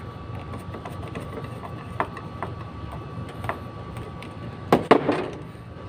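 Light clicks and taps of wire leads and a screwdriver being handled at control-relay terminals, over a steady low background rumble. A short cluster of louder clacks comes near the end.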